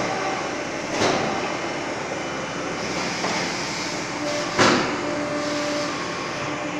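PMB 1200 hydraulic briquette press running: a steady mechanical din with two loud knocks, one about a second in and one past the middle.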